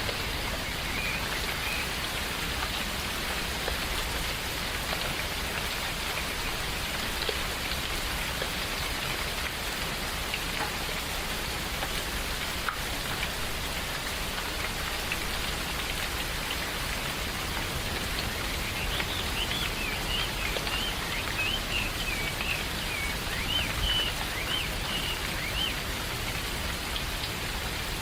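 Steady rain falling on forest foliage, with short high bird chirps at the start and again for several seconds in the second half.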